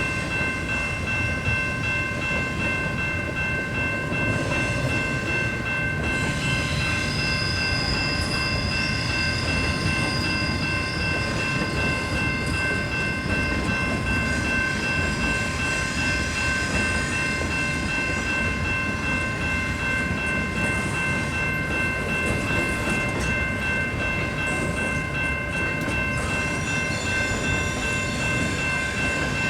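A Canadian Pacific intermodal stack train rolling past: a steady rumble of container cars on the rails, with a steady high-pitched squeal held over it the whole time.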